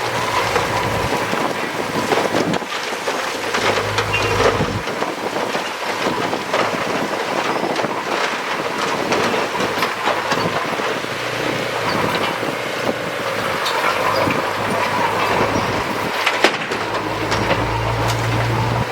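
Heavy earthmoving machinery at work: a diesel engine running steadily, with scattered clanks and knocks of metal throughout.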